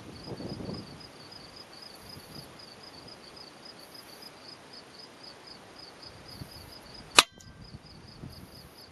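A single shot from an Edgun Matador .22 PCP air rifle about seven seconds in: one sharp crack. A faint, even high ticking, about three a second, runs throughout.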